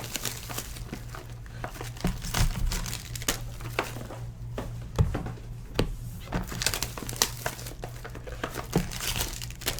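Plastic wrapping and card sleeves crinkling and rustling as trading card packs are opened and cards handled, with irregular sharp clicks, over a low steady hum.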